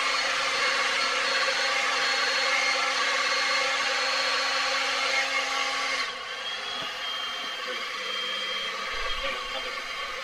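Handheld hair dryer blowing a steady whir of hot air onto the thin printed filament strands of a 3D-printed lion, softening them so they can be bent into shape. About six seconds in it drops in level and its tone changes.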